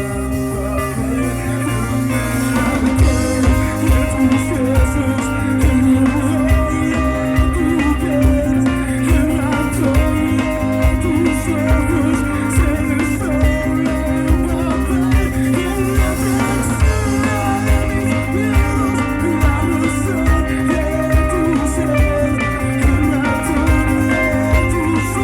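Live band playing a song with guitar to the fore, over a steady beat that grows fuller about two seconds in.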